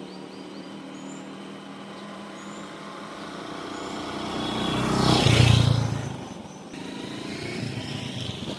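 Motor vehicle traffic: a steady engine hum, with a vehicle passing close by that swells to its loudest about five and a half seconds in, then fades away.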